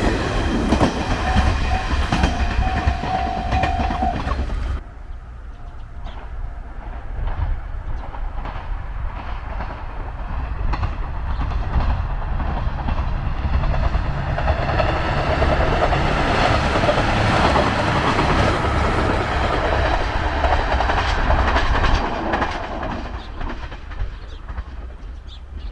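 A JR Shikoku Tokushima Line diesel train running past on the rails, with a deep engine rumble and wheels clacking over the rail joints. A steady tone holds for about two seconds, starting about two seconds in. The sound drops about five seconds in, swells again in the second half, and then fades toward the end.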